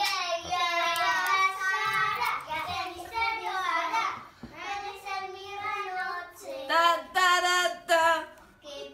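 Young children singing a song in high voices, holding long wavering notes, with a short pause about halfway through.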